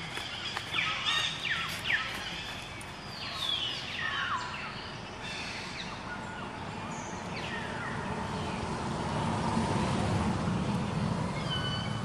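Outdoor ambience: birds giving short high chirps that sweep downward, several in the first half and again near the end, over a low rumble like distant traffic that grows louder in the second half.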